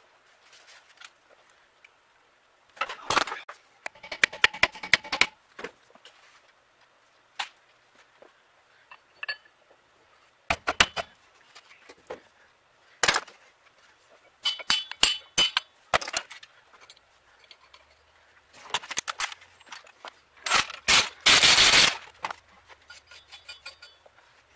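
Metal clinks and clatters every few seconds as the fan, pulley and nut of a 1948 Chevrolet Delco-Remy generator are fitted onto its shaft. Near the end comes the loudest, a rapid rattling of about a second, typical of a power impact wrench running the pulley nut on.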